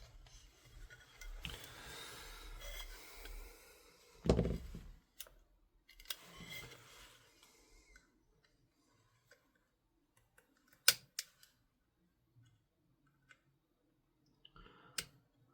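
Small metal clicks and scraping as a tiny C-clip is worked at on an airsoft rifle's upper receiver. A thump comes about four seconds in, then scattered clicks, the sharpest about eleven seconds in.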